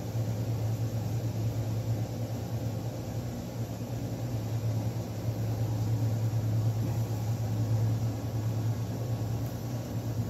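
A steady low hum.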